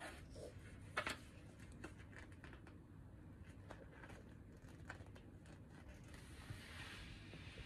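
Faint handling of a children's picture book: soft paper rustling and small clicks as its pages are turned. A sharp click comes about a second in, and a soft rustle near the end.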